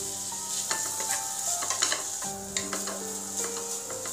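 Wooden spatula stirring an egg, shrimp and vegetable stir-fry in a hot non-stick frying pan: a steady high sizzle broken by irregular scrapes and taps of the spatula against the pan.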